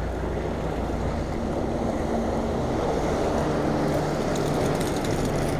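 Sea surf washing and breaking over rocks, with wind buffeting the microphone. A light run of clicks comes near the end.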